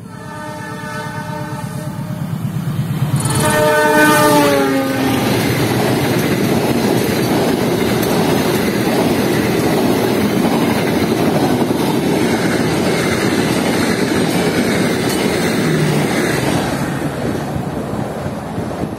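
A diesel locomotive hauling a long passenger train sounds its horn as it approaches. It sounds it again as it passes close by, with the pitch dropping. Then comes a long, loud rush of coaches passing at speed, with the clatter of wheels on the rails, easing near the end.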